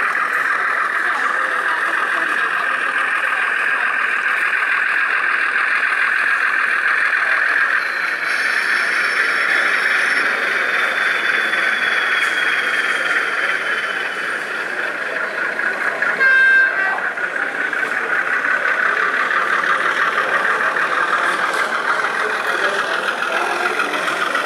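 A short horn toot from a sound-fitted OO gauge model of a Brush Type 2 (Class 31) diesel locomotive, heard once about sixteen seconds in. It sounds over a steady background din.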